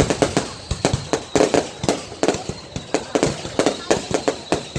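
Fireworks going off: many sharp bangs in quick, irregular succession, several a second, overlapping one another.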